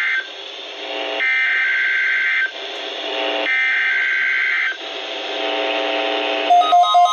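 Emergency Alert System SAME header received on NOAA Weather Radio: three bursts of warbling digital data tones, each a little over a second long and separated by about a second of radio hiss, the first already under way. About six and a half seconds in, a pulsing electronic alert beep starts on two tones, about four beeps a second.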